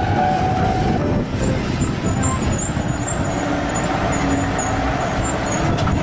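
Heavy tow truck towing a bus along a road: the truck's engine running with tyre and road noise, a steady dense rumble.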